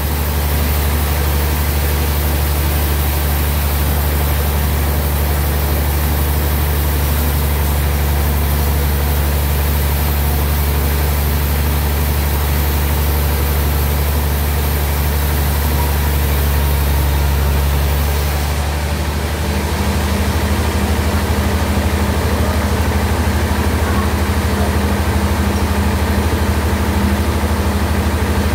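Sawmill bandsaw running steadily with a deep, even engine-like hum. The tone shifts about two-thirds of the way through, the lowest hum easing and the high hiss dropping away.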